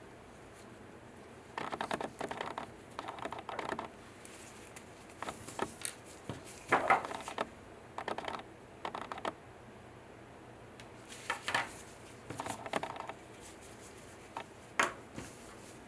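Plastic-gloved hands handling a plastic syringe of diamond polishing paste and a small polishing block. The sound is short clusters of light clicks, taps and plastic rustles, the loudest about seven seconds in, and a sharp tap near the end.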